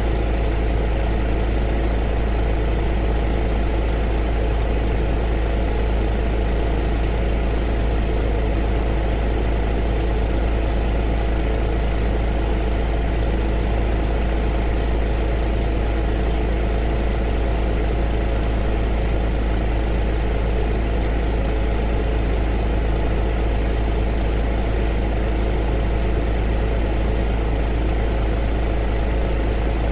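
A heater running: a steady, unchanging hum with a strong deep low end and an even rush of air over it.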